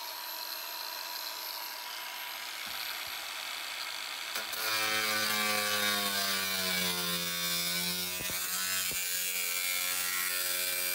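Angle grinder with a cut-off disc spinning up with a high whine, then from about four seconds in cutting into the van's sheet-metal roof, louder, its pitch dipping under load and recovering.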